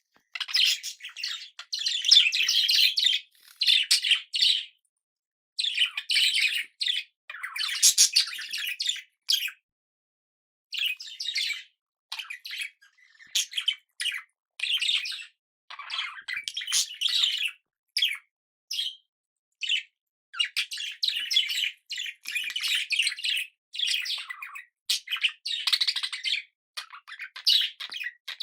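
Budgerigar chattering and warbling in bursts of rapid high chirps and squawks, with short silent gaps between phrases.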